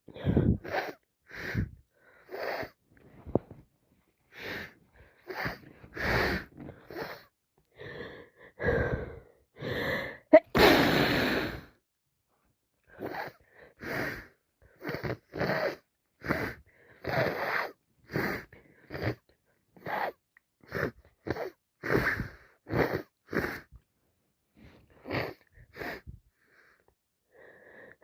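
A woman with a heavy head cold sneezing again and again, with sharp, wheezy in-breaths between the sneezes. The loudest sneeze comes about ten seconds in.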